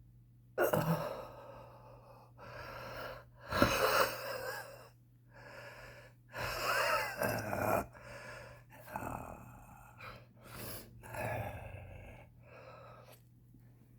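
A smoker gasping and wheezing for breath: a run of about eight or nine laboured breaths with short pauses between them, opening with a sharp loud gasp. Some breaths carry a wavering whistle in the airways, the wheeze of smoke-strained lungs.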